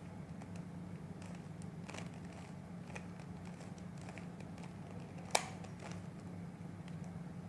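Plastic Rubik's cube being turned in the hands: scattered soft clicks of the layers twisting, with one sharp louder click about five seconds in, over a steady low hum.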